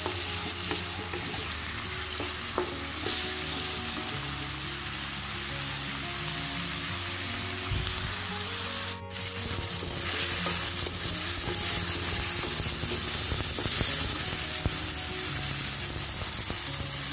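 Chopped shallots, garlic, chillies, tomato and spices sizzling in hot oil in a wok while being stirred with a wooden spatula, sautéed until wilted and fragrant. The sizzle breaks off for an instant about nine seconds in.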